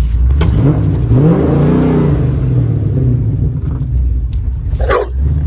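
A car engine running with a steady low rumble, revved once about a second in, its pitch rising and then falling back. A short sharp sound comes near the end.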